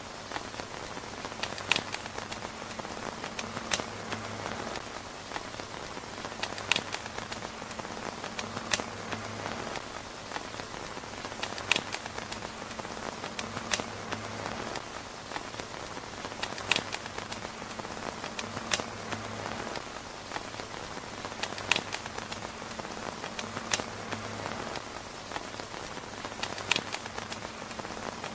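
Steady rain falling on a tent roof, with sharp ticks or pops every second or two.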